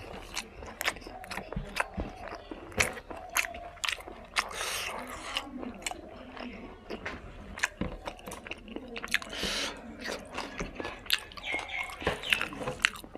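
Close-miked mouth sounds of a man chewing pork fry and rice, with many sharp wet clicks and crunches. Rustles are heard now and then as his hand mixes and presses rice on the foil-covered table.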